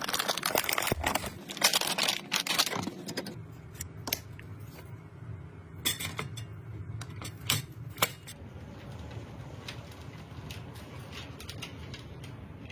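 Clicks, taps and scrapes of hard parts being handled during a PC build, dense for about the first three seconds, then only a few scattered clicks over a steady low hum.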